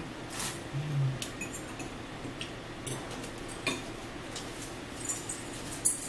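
Spoons and forks clinking and scraping against bowls and dishes as two people eat, in scattered single clicks. A short low hum comes about a second in, and a rustle near the end.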